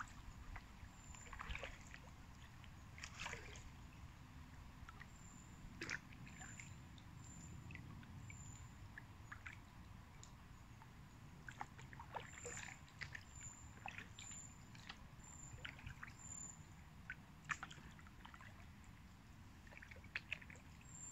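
Quiet water sounds around a kayak on a calm river: scattered drips, plinks and small splashes against a low, steady rumble.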